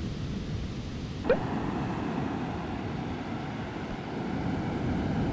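Ocean surf washing on a sandy beach, with wind rumbling on the microphone. A short sharp click about a second in, after which the surf is a little fuller and louder near the end.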